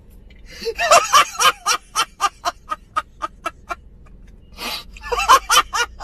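A man laughing hard and uncontrollably, a rapid run of 'ha' bursts at about four or five a second. Near the end he takes a loud gasping breath and breaks into a last quick burst of laughter.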